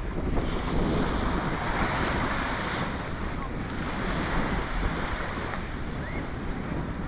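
Baltic Sea surf washing onto a sandy beach, one wave swelling and fading over about five seconds, with wind rumbling on the microphone.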